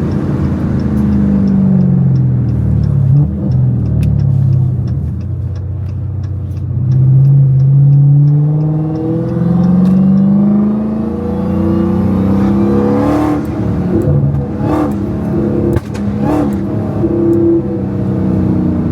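A Hellcat's supercharged 6.2-litre Hemi V8 on a catless exhaust, accelerating hard and shifting, its pitch climbing and dropping several times. A faint rising supercharger whine comes with one pull, and there are a few sharp exhaust pops in the last third.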